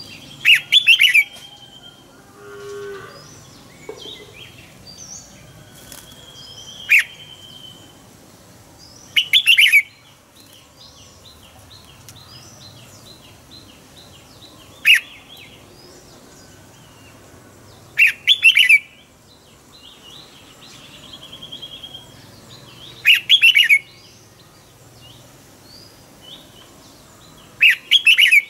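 Red-whiskered bulbul singing short, loud, clear phrases about every three to five seconds, seven in all, with faint chirping of other birds between them.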